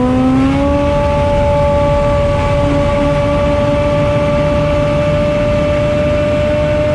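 Yamaha four-cylinder snowmobile engine in a STOL kitplane, running at high RPM. Heard from the cockpit, its note rises over the first second as power comes up, then holds one steady high pitch over the rush of the propeller and air.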